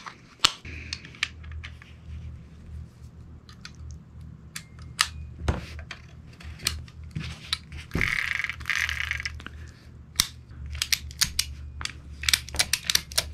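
Small metal clicks and handling knocks from a Ruger New Vaquero single-action revolver as its grip panels are fitted and the gun is handled, with a short scrape about eight seconds in. Near the end comes a quick run of small metallic clicks as the action and cylinder are checked.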